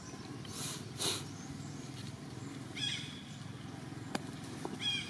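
Baby long-tailed macaques giving two short, high-pitched squeaks about two seconds apart, with a brief rustle of dry leaves about a second in.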